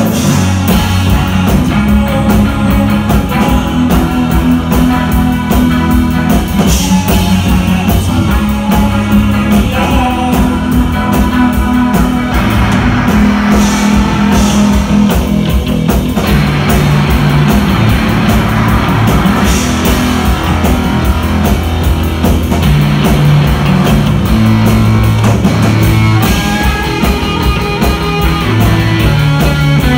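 Live rock band playing loudly: electric guitars and a drum kit, with singing at times.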